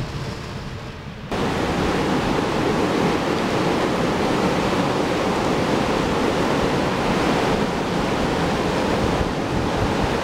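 Steady rushing noise of typhoon wind and water, with no distinct events; it steps up sharply about a second in and stays loud.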